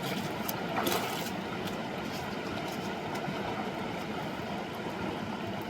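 Rushing river water: a steady, even roar of flowing water, with a brief light knock about a second in.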